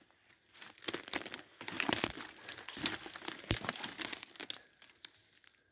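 Footsteps crunching through dry leaf litter and snapping twigs, an irregular run of crackles with one heavier thud midway, tailing off near the end.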